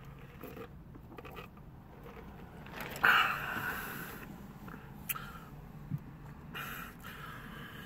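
A drink sipped through a straw from a paper fountain-drink cup, with a short loud scraping rustle about three seconds in and a few small clicks after it.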